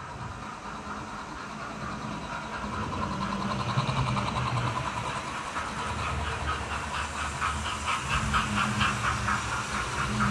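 Model railway steam locomotive hauling coaches, its motor running and wheels clicking rapidly and rhythmically over the track, growing louder as the train draws near and passes.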